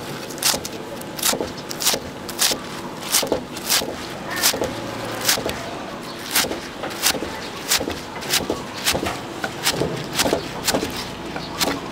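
Metal spatula scraping and clanking against a large wok as a big batch of fried rice is stir-fried, in uneven strokes about one to two a second.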